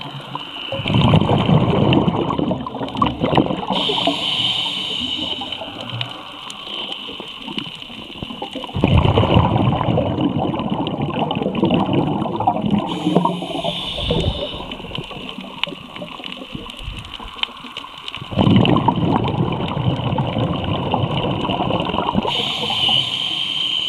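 Scuba diver breathing through a regulator underwater: three long rushes of exhaled bubbles, each a few seconds, about 1, 9 and 18 seconds in, with a quieter hiss between them.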